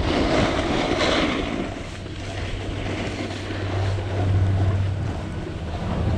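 Snowboard sliding over packed, chopped-up snow, its base and edges scraping, loudest in the first couple of seconds and then easing, with wind rumbling on the microphone throughout.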